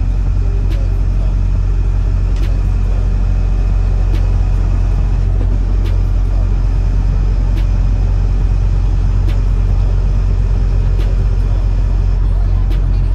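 Steady low engine and road rumble inside a semi-truck cab while driving, with a faint sharp tick about every second and a half to two seconds.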